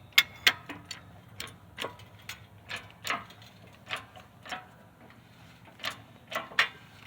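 A string of sharp metallic clicks and taps, irregular at about one or two a second with a short pause partway through, from metal parts being worked at a hydraulic shop press.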